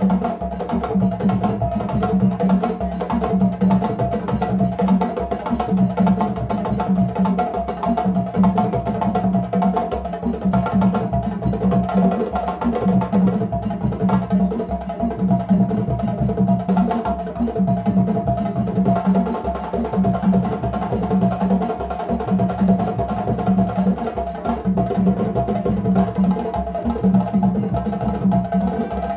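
Djembe drum ensemble playing a fast, dense hand-drum rhythm, with a low drum part that repeats about every two seconds.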